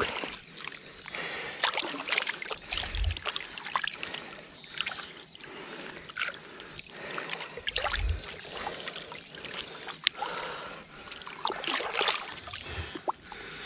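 Shallow river water splashing and trickling irregularly as hands hold a large wels catfish in the water at the bank and let it go. A couple of dull low bumps come about three and eight seconds in.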